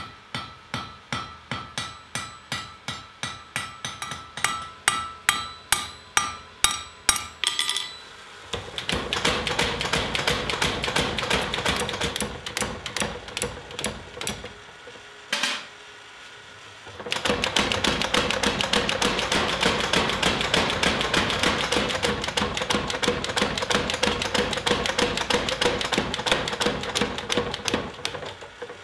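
Hand hammer striking hot steel on a steel anvil, about three blows a second with a ringing note. About eight seconds in it gives way to fast, tightly packed hammering. That hammering stops for a pause with one click, then resumes to near the end.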